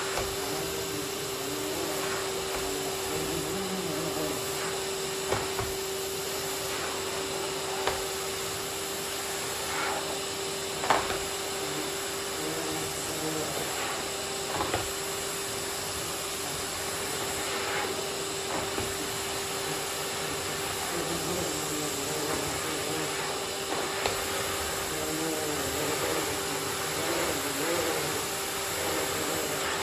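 Miele vacuum cleaner running steadily, a constant hiss of suction with a steady motor whine, with a few sharp knocks of the nozzle scattered through.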